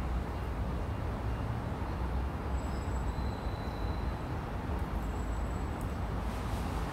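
Steady low outdoor background rumble, with a few brief faint high whistles in the middle.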